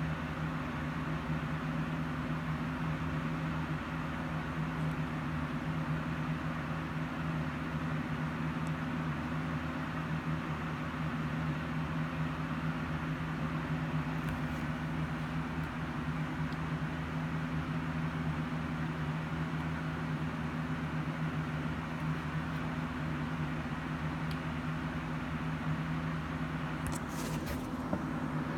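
Steady machine hum with a low drone that holds the same pitch throughout, and a brief faint scratch near the end.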